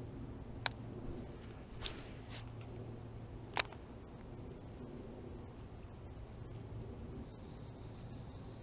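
Insects, crickets, trilling steadily at a high pitch, with a few short sharp clicks, the loudest about three and a half seconds in.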